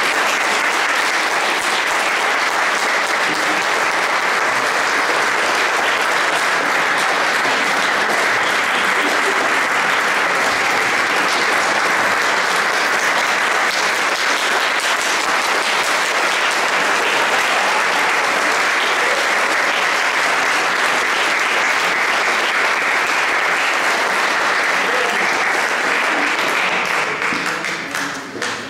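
Audience applauding steadily for a long stretch, the clapping dying away near the end.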